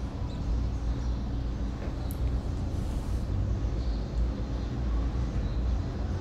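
Steady low rumbling background noise with no speech, typical of road traffic heard through the room.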